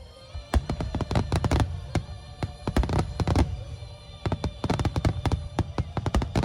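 A rapid volley of fireworks going off, many sharp bangs and crackles in quick clusters, starting about half a second in, with music playing underneath.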